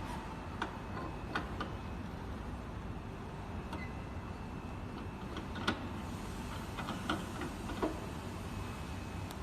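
Parts of a coffee roaster being fitted together by hand as the loading hopper is put on: scattered short clicks and knocks, about five of them, the sharpest about six seconds in, over a steady low background hum.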